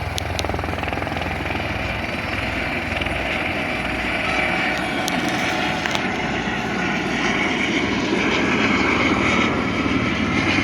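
Helicopter running close by, its rotor giving a rapid, even chopping over steady engine noise, growing slightly louder in the second half.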